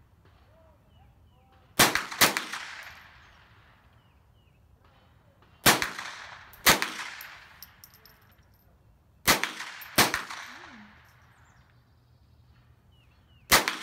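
Rifle shots fired from a shooting bench: seven sharp cracks, mostly in pairs half a second to a second apart, each trailing off in a rolling echo across the range.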